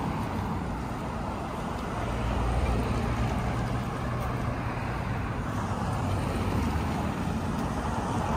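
Road traffic from the street alongside: a steady rumble of passing cars, with a heavier low rumble from about two seconds in.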